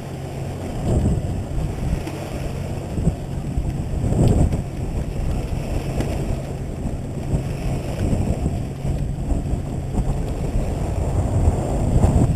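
Wind buffeting the microphone over the steady low hum of a sportfishing boat's engine, the wind surging about a second in, around four seconds in and near the end.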